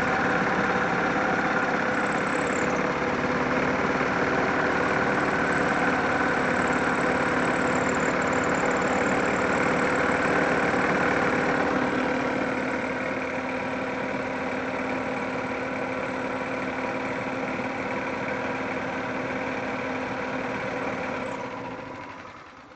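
1999 Yamaha G16 golf cart running with its drive belt squealing steadily, a persistent squeal that the owner has not been able to cure. The sound drops in level about twelve seconds in and fades out near the end.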